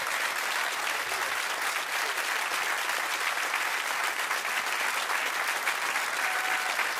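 Audience applauding steadily after a cabaret performance: dense, even clapping from a seated crowd of a few dozen people.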